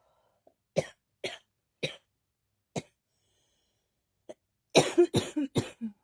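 A person coughing: four single dry coughs in the first three seconds, then a quick fit of four coughs in a row near the end.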